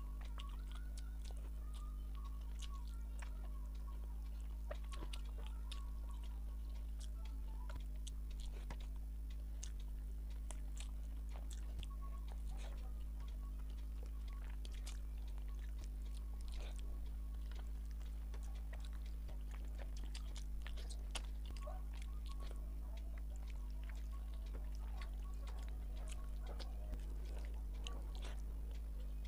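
Close-miked chewing of rice and fish head curry, with many small wet clicks and smacks scattered through, over a steady low hum.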